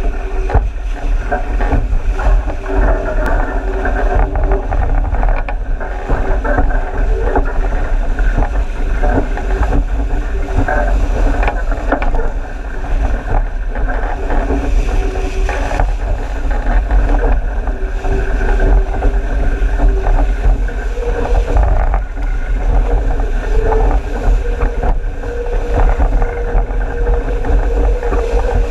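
Wind buffeting the microphone of a boat-mounted camera over the steady rush of water and spray along the hull of an RS800 skiff dinghy sailing fast.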